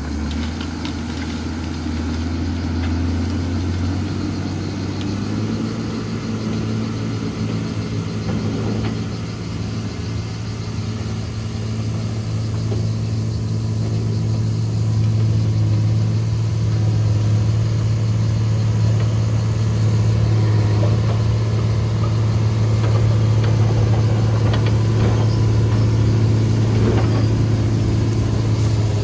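Diesel engine of a John Deere grader running as the machine works, a steady low drone. It steps up in pitch a few seconds in and grows louder about halfway through.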